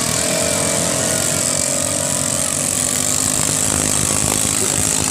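Ketinting longtail boat engine running steadily at a constant speed.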